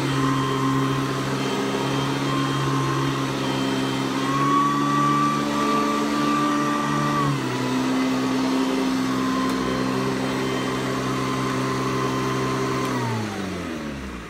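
Hoover Decade 80 upright vacuum cleaner running, its motor speed shifting: the pitch rises slightly about four seconds in and drops about seven seconds in, the power surging the uploader notes. Near the end it is switched off and the motor winds down.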